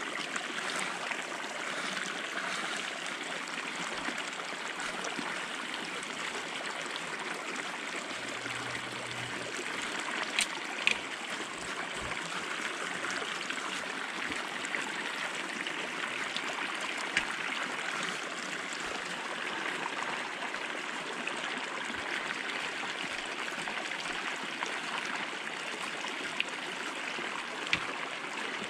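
Small mountain stream running steadily over a shallow riffle, an even rushing burble of water, with a few short sharp clicks now and then.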